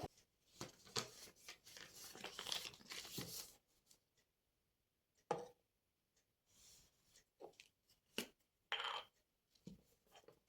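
Crinkling and rustling, like paper or a wrapper being handled and torn, for about three seconds, then a few light clicks and short rustles.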